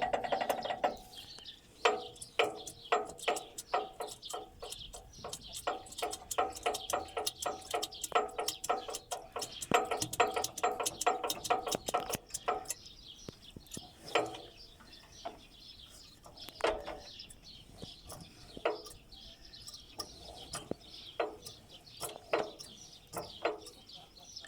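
Metallic knocking from the crank mechanism of a Kentavr MB1012DE walk-behind tractor's single-cylinder diesel as the crankshaft is worked through bottom dead centre and then top dead centre. There is a dense run of knocks for about the first twelve seconds, then scattered single knocks. The knock is unexplained, since the connecting rod shows no radial play on its crankshaft bearing shells.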